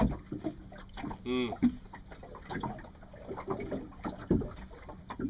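Water washing against a small fishing boat's hull, with scattered knocks and a brief voice sound about a second in.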